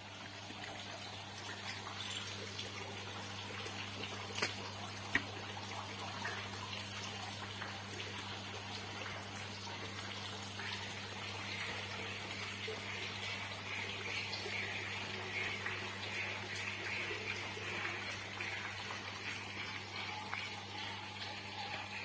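Water pouring from a pipe down into a stone well, a steady trickling splash, over a steady low hum. Two sharp clicks sound about four and five seconds in.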